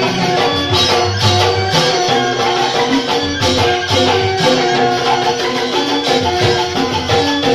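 Balinese joged bumbung gamelan playing live: bamboo xylophones (grantang) ringing in a continuous mallet-struck melody, with sharp percussion strokes over it.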